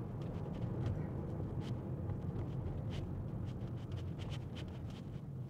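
Steady low road and tyre rumble heard inside a moving Tesla's cabin, with a few faint, scattered ticks.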